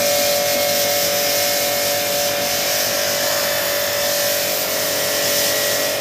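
A bank of VRF air-conditioning outdoor units running: the steady whoosh of their large top fans with a steady hum through it.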